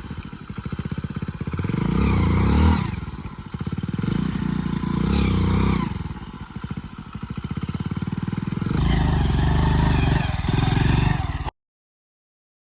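Hero Splendor Plus motorcycle's single-cylinder engine running, revved up twice in the first half. The sound changes abruptly about nine seconds in, then cuts out to silence about a second before the end.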